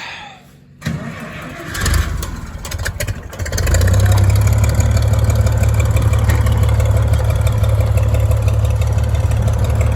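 Gasoline tractor engine cold-started on choke: cranked for a couple of seconds, catching about three and a half seconds in and then running steadily.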